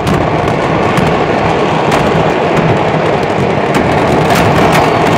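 A fireworks market's stock going off all at once in a mass explosion: a loud, continuous crackling rumble with many sharp cracks and bangs scattered through it.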